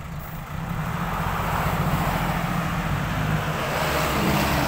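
Six-wheel dump truck's diesel engine pulling away, getting louder about half a second in and then running steadily as the truck moves off with its tipper bed raised.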